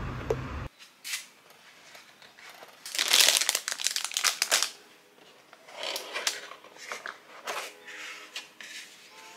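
Paper gift wrapping crinkling and rustling as a package is handled and opened. The loudest stretch lasts about two seconds, starting about three seconds in, and shorter rustles follow. At the very start there is a moment of outdoor wind and street noise, which cuts off abruptly.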